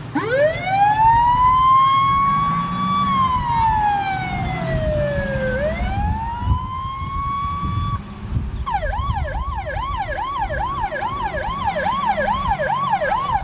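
Fire engine siren sounding over the engine's low running. It winds up into a slow wail that rises, holds, falls and rises again, then switches about two-thirds of the way in to a fast yelp of about three sweeps a second.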